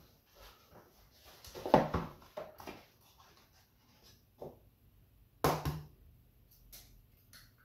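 An egg carton set down on the counter with a knock and handled open, then about five and a half seconds in an egg cracked sharply against the rim of a metal mixing bowl.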